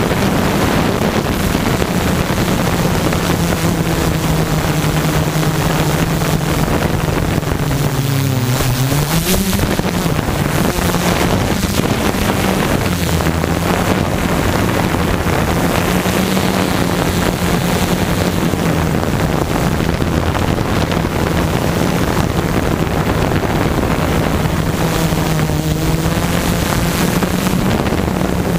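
Multirotor drone's electric motors and propellers humming steadily, recorded by the onboard camera, with wind rushing over the microphone. About eight seconds in, the pitch of the hum dips and climbs back, and it wavers again near the end.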